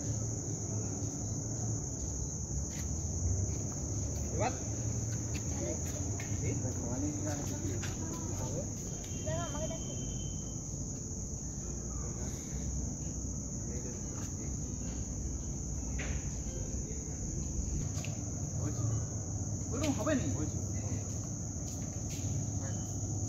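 Steady, high-pitched, unbroken drone of an evening insect chorus, with a low rumble underneath.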